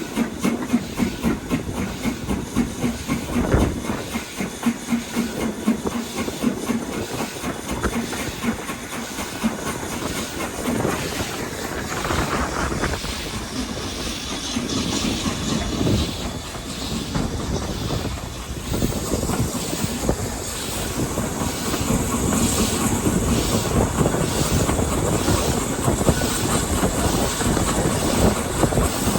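BR Standard Class 4 4-6-0 steam locomotive 75069 working a train, with rhythmic exhaust beats and steam hiss, and the clatter of the train's wheels on the rails.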